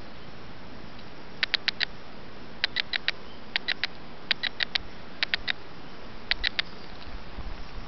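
Bolivian squirrel monkey giving short, high squeaky chirps in quick runs of three or four, about one run a second.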